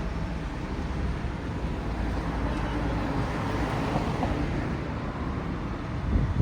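Road traffic passing, one vehicle's noise swelling and fading about three to four seconds in, over a low wind rumble on the microphone.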